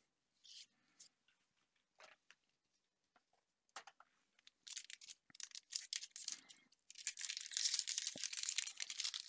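Foil wrapper of a Magic: The Gathering booster pack crinkling and tearing open, after a few scattered light clicks and rustles; the crackle gets dense about five seconds in and is thickest near the end.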